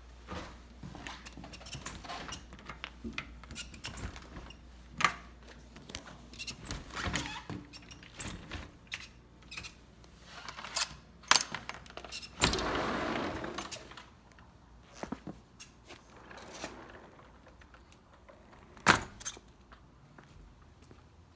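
A sliding glass patio door being handled and rolled open: scattered clicks and knocks of the latch and frame, a rush of about a second and a half as the door slides, about halfway through, and a few sharp knocks.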